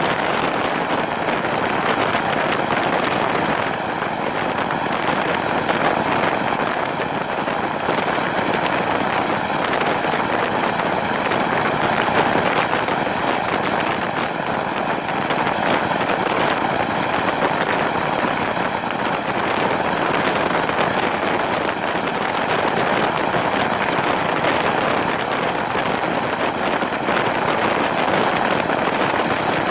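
Helicopter in flight heard from a camera on the airframe: a steady, loud rush of rotor and wind noise that does not change.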